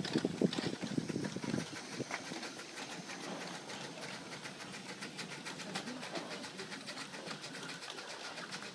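Miniature 7¼ inch gauge steam locomotive, an 0-4-2 side tank, running along the track. Its exhaust beats are loudest in the first second and a half, then fall quieter as it draws away, leaving a fast, even ticking.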